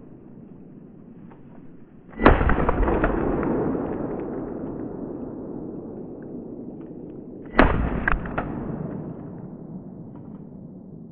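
Two gunshots about five seconds apart, each with a sharp crack followed by a long rolling echo that fades over a few seconds.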